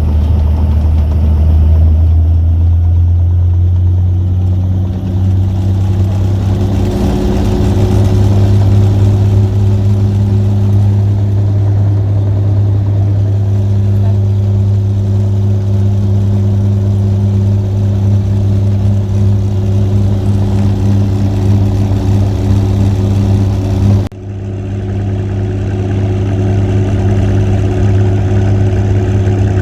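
A helicopter's engine and rotor drone heard from inside the cabin: a loud, steady low hum whose pitch rises slightly a few seconds in, then holds. Near the end it breaks off for an instant at an edit and resumes.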